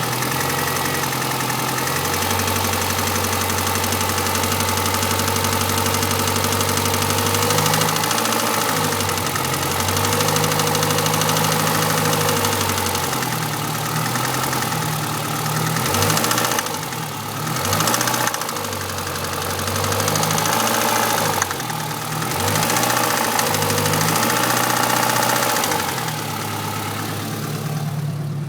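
Renault Clio RS phase 1's 2.0-litre four-cylinder engine running at idle, then revved briefly several times in the second half, the pitch rising and falling back each time.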